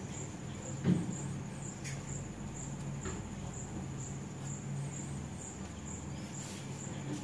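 Crickets chirping steadily, a high-pitched pulsing at about two to three chirps a second, over a low steady hum. A soft knock about a second in.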